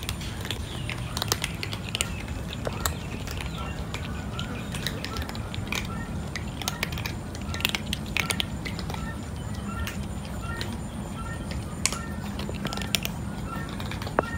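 Several cats crunching dry kibble, with many sharp irregular cracks as they chew. From about four seconds in, a short high chirp repeats about twice a second in the background.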